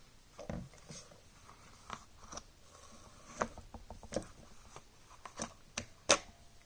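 Handling noise from gear being moved about: a scattered series of sharp clicks and light knocks, the loudest about six seconds in.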